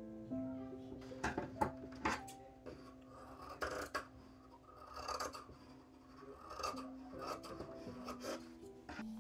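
Dressmaking scissors cutting through several layers of tulle in a series of short strokes, with the net fabric rustling as it is handled. Soft piano music plays underneath.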